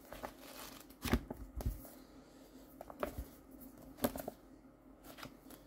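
A paperback book being handled: soft rustles of paper and cover with a few short, sharp taps spread through.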